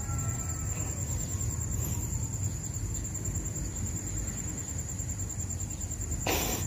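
Steady high-pitched trill of crickets over a low rumble, with a short burst of rustling noise near the end.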